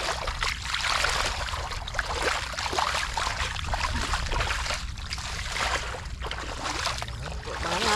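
Shallow water splashing and sloshing unevenly, as from hands and legs moving through a flooded field, over a steady low rumble.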